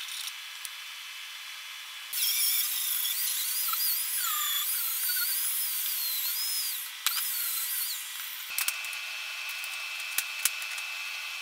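Power grinder cutting into a forged steel scroll for about five seconds from about two seconds in, its pitch wavering up and down as it is pressed into the metal, followed by a shorter burst of grinding. Light clicks of steel being handled come before it, and a steady high tone starts near the end.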